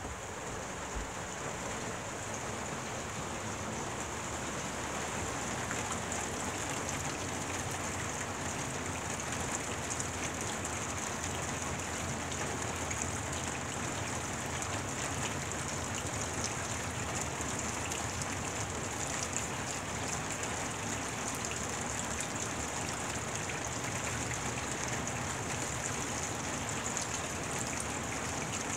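Steady rain falling on a wet street and lawn: an even, bright hiss dotted with fine patters of drops.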